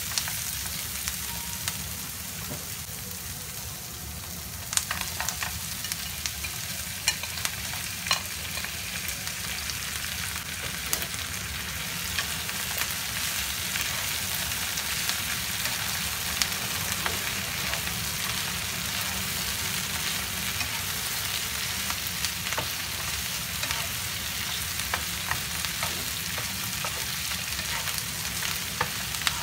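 Sliced onions and chicken pieces sizzling in oil in a nonstick frying pan while a spatula stirs them, scraping and clicking against the pan. The sizzle grows louder after about five seconds.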